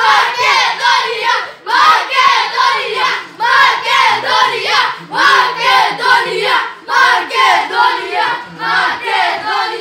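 Several children chanting and singing loudly together in a steady rhythm, about two shouted phrases a second: a fan chant cheering on a team.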